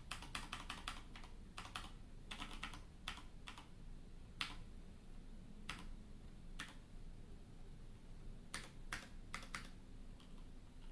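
Typing on a split ergonomic mechanical keyboard: quick runs of key clicks for the first few seconds, then a few single key presses, and a short run a little before the typing stops near the end.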